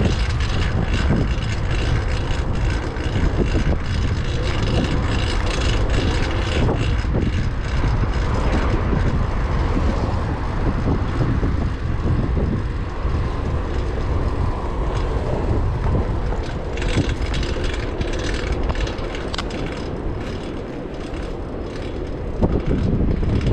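Wind buffeting the microphone and road rumble while riding a fixed-gear bike, with a faint steady high whine from a noisy drivetrain on a new cog. It eases a little near the end, then picks up again.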